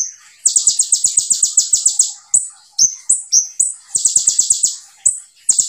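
Male Van Hasselt's sunbird (kolibri ninja) singing: two long, very fast high trills of evenly repeated notes, about eight a second, separated by a few short separate chirps, with a new trill starting near the end.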